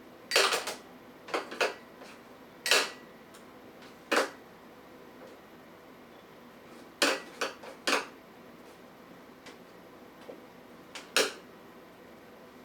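Irregular sharp clinks and knocks of hard objects, like a dish or bowl being knocked, about eight in loose clusters, a few with a brief ring.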